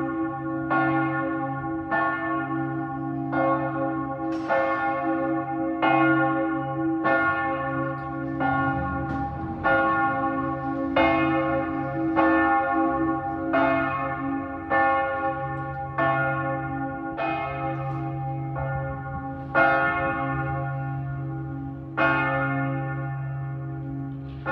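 Church bells of St Mark's Basilica ringing: regular strokes about one every second and a quarter, each strike's ringing running on into the next over a steady low hum.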